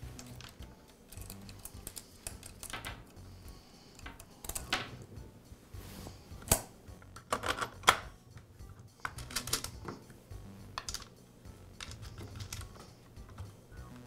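Saw chain and guide bar being handled and fitted onto an Echo chainsaw: scattered light clicks and clinks of the metal chain links and parts, with a few louder knocks about six and eight seconds in.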